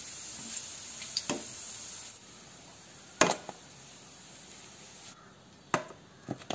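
Hot oil sizzling in a frying pan as fried bread balls are scooped out with a perforated steel skimmer; the sizzling stops about two seconds in. A few sharp knocks of the metal skimmer follow as the balls are tipped into a container, the loudest about three seconds in.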